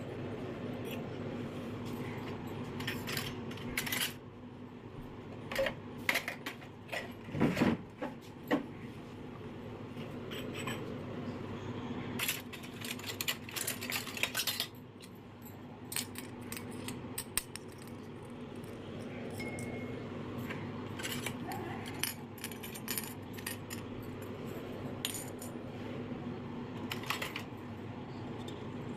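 Miniature stainless-steel toy pots, bowls and plates clinking and tapping as they are handled and set down on a concrete floor, in irregular scattered clinks with the busiest stretch in the first half. A steady low hum runs underneath.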